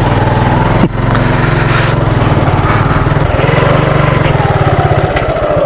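Motorcycle engine running at low speed as the bike pulls away, its firing pulses steady. There is a brief dip about a second in, and a slowly falling tone near the end.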